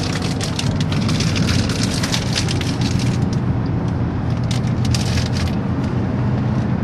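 Car driving, heard from inside the cabin: a steady low road and engine rumble, with a patter of sharp ticks that comes and goes.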